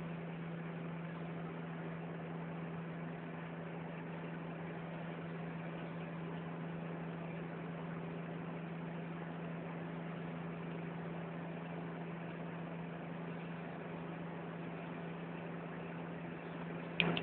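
Steady road and engine noise heard inside a moving car's cabin, with a steady low hum under it. A brief sharp sound near the end.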